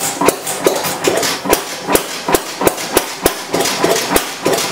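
Economy throttle-governed stationary gas engine firing with a sharp bang about two to three times a second, the beats slightly uneven: it is just catching and starting to run once fuel reaches it.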